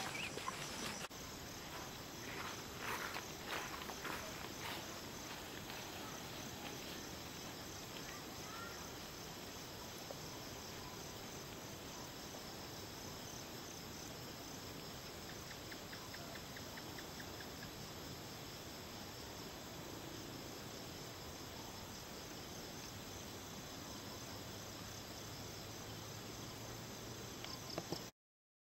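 Evening insect chorus, a steady high pulsing trill, with a few soft knocks about two to four seconds in.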